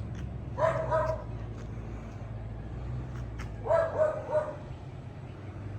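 A dog barking in short runs of two or three barks about every three seconds, over a steady low hum.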